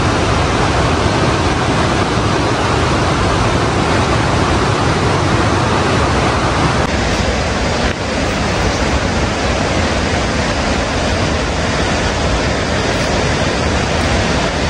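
Steady rushing of a fast mountain stream: a loud, even hiss of water with no let-up.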